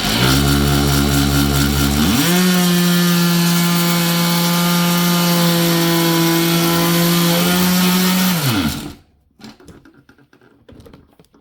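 Corded variable-speed oscillating multi-tool running with a steady buzz. Its pitch steps up to a higher speed about two seconds in, and it is switched off and winds down near the end.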